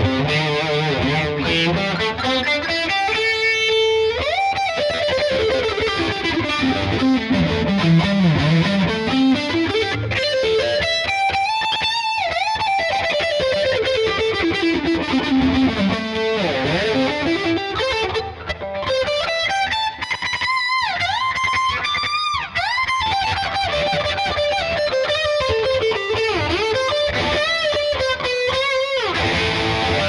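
Ibanez GRGR121M electric guitar played with a distorted tone: fast lead runs that climb and fall across the neck in long sweeping lines, with a couple of brief gaps past the middle.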